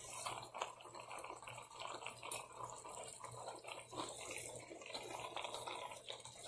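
Chicken stew simmering in a pot, the gravy bubbling with many faint small pops and ticks over a low steady hum.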